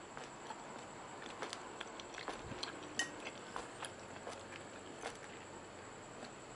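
Metal spoon clinking and scraping against a ceramic plate as it scoops up stir-fried pork and vegetables: irregular light clicks, the loudest clink about three seconds in, over a steady faint hiss.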